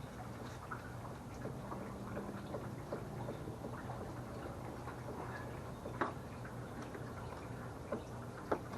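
A screw being driven by hand into a plastic car door trim panel: a run of small irregular ticks and clicks, with a couple of sharper clicks about six seconds in and near the end.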